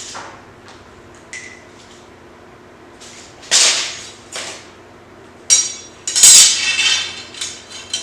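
Metal tools clanking and clinking as they are handled and set down, a few separate knocks with the loudest cluster about six to seven seconds in.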